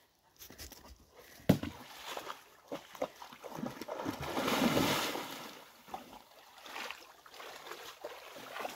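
Dog splashing and wading through shallow pond water. There is a sharp splash about a second and a half in, and the sloshing is loudest a few seconds later.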